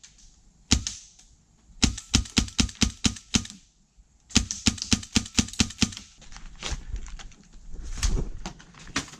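Airsoft guns firing: a single shot, then two quick strings of sharp shots at about six a second, followed by fainter scattered shots.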